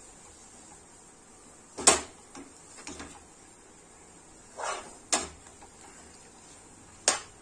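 A steel spoon knocking and scraping against a non-stick kadai while thick chana dal halwa is stirred and pressed. There are several short, sharp knocks, the loudest about two seconds in. The halwa is cooked down to the stage where it pulls away from the sides of the pan.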